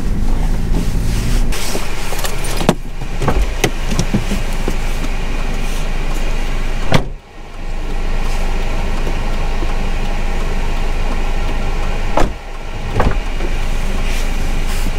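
Car running, heard inside the cabin: a steady engine and road hum, with a few sharp knocks and clunks. The hum drops out briefly about seven seconds in.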